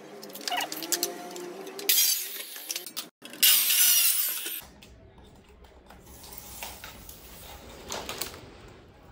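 Power cutter machine with a diamond blade cutting through WPC (wood-plastic composite) strips. There are two loud cuts, one at about two seconds and a longer one from about three and a half seconds, then only low handling noise.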